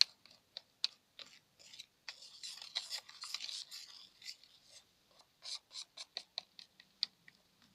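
Shaving-foam slime mixture being stirred and scraped in a container: a run of short, sharp clicks and taps, with a longer rustling scrape around the middle.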